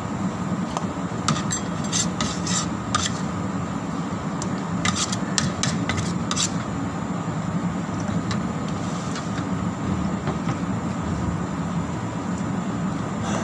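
Eating by hand from a plastic plate: scattered clicks and smacks of chewing and fingers on the plate, in two short clusters, over a steady low hum.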